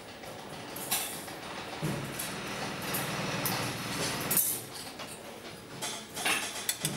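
Workshop handling noise: light clicks and knocks of small metal parts and tools on a bench, with a steady low hum that starts about two seconds in and stops a little past four seconds.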